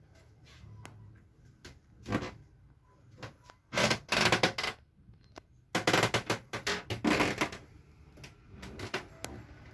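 Clattering knocks and rapid rattling clicks from handling and movement in a small wood-panelled yacht cabin, in bursts about two, four and six seconds in, the last running for over a second.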